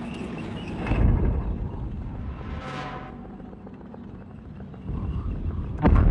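Low, steady rumble of vehicles, broken by a heavy thud about a second in and another near the end, with a short swell of higher sound in the middle.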